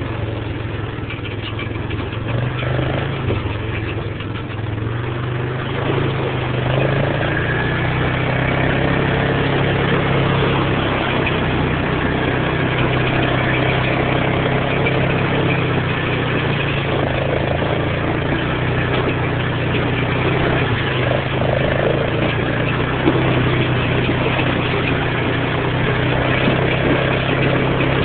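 Four-wheeler (ATV) engine running under way, heard from the rider's seat, its note shifting a little with the throttle; it gets louder about six seconds in.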